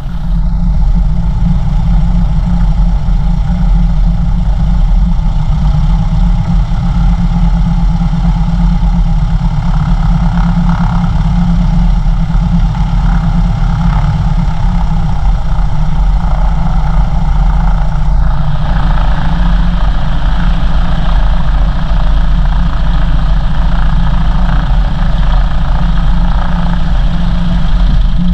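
Cessna 177RG Cardinal's four-cylinder Lycoming IO-360 engine and propeller running steadily at low taxi power, heard loud inside the cabin.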